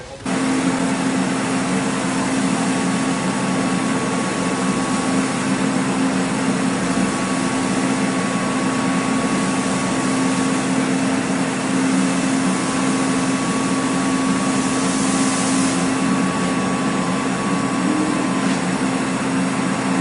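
Steady mechanical hum of a rotating tel kadayıf griddle machine running, a constant low drone with a faint higher whine over it.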